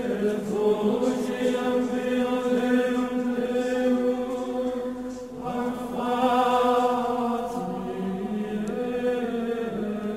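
Slow chant sung on long held notes, the pitch shifting about five seconds in and again nearly eight seconds in.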